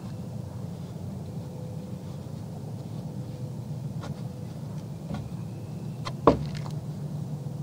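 Whitetail deer feeding at a feeder tub: a few faint clicks, then one sharp knock with a short falling ring about six seconds in, over a steady low rumble.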